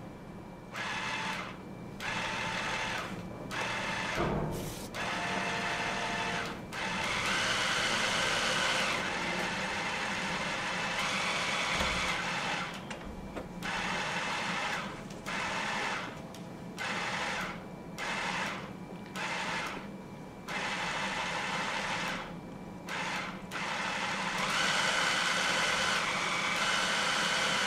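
Electric hand mixer motor whirring, switched on and off over and over in short and long runs and stepped between its four speeds, so its whine jumps up and down in pitch. It is being played as a rhythm: the start-stops come about once a second through the middle, with longer unbroken runs before and near the end.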